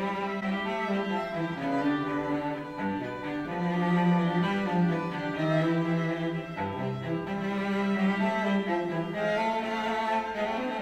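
Classical string music with cello and violins, played through a pair of Yamaha HS7 studio monitors and, partway through, a pair of JBL 305P MKII studio monitors, recorded by a microphone in the room.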